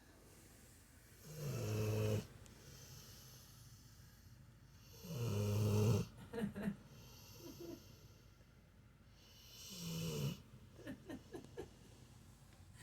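A dog snoring while asleep: three long, low, pitched snores about four seconds apart, the second and third each followed by a few short snuffling puffs.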